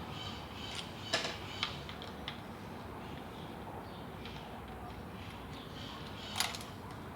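A few sharp clicks and knocks of hard parts being handled, two close together about a second in, a faint one shortly after and another near the end, over a steady low background noise.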